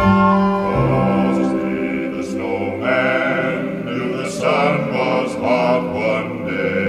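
Music: several voices singing held notes in harmony, choir-like, over sustained chords that start abruptly at the outset.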